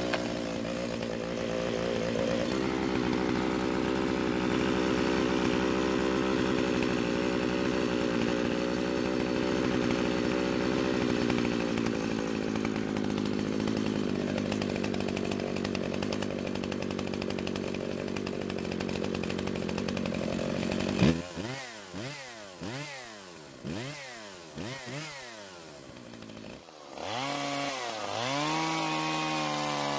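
Husqvarna two-stroke chainsaw engine starting on a pull and idling steadily. Its idle drops a little lower partway through because the carburettor's low-speed mixture has been turned richer, a sign that the idle had been running lean. Later the throttle is blipped about four times in quick rising-and-falling revs, then opened up to a steady high speed near the end.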